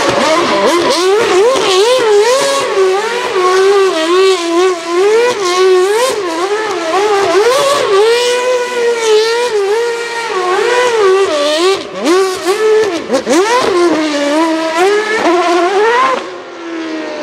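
Ferrari Type 056 2.4-litre naturally aspirated V8 of a Sauber C32 Formula 1 car, revved hard during donuts, its pitch rising and falling rapidly over and over as the rear tyres spin and smoke. Near the end the revs drop away with a falling tone.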